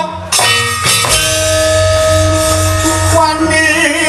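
Javanese gamelan music. After a sharp onset just in, struck bronze instruments ring with steady held notes over a pulsing low drum. A singing voice with a wavering vibrato comes back near the end.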